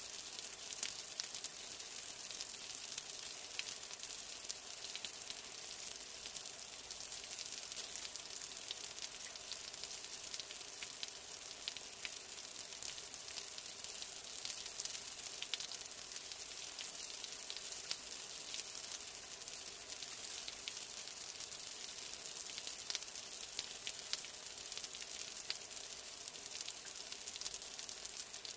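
Steady rain: an even hiss with many small, scattered drop ticks.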